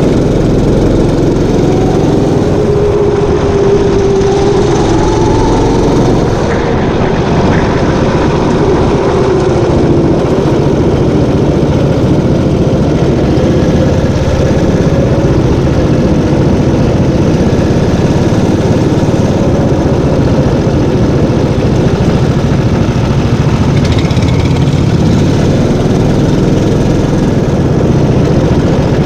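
Sodi rental kart engine running hard during a race, loud and continuous, its pitch rising and falling as it speeds up and slows.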